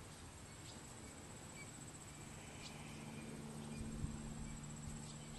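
Faint outdoor ambience: a steady high-pitched insect drone, typical of crickets, with a faint low hum underneath that grows a little stronger past the middle.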